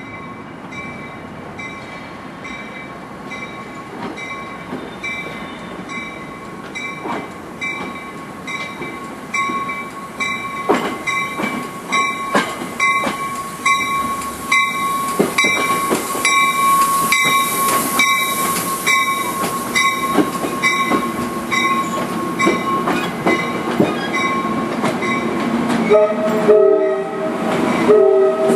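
NJ Transit push-pull cab car rolling slowly in with its bell ringing steadily, about three strokes every two seconds. Wheel noise and clicks over the rail joints grow louder as it draws alongside. Near the end a deeper, steady tone comes in as the coaches pass close by.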